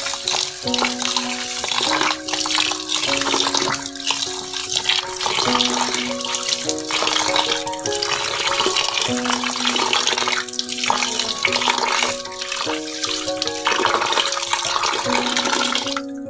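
Background music with a simple melody of held notes, over water swishing and splashing as raw rice is rubbed and rinsed by hand in a plastic bowl. The water noise stops near the end, leaving the music.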